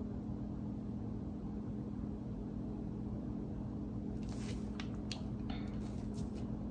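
A steady low hum in a small room, with a few faint taps and rustles in the second half as a hand moves near the cards on the table.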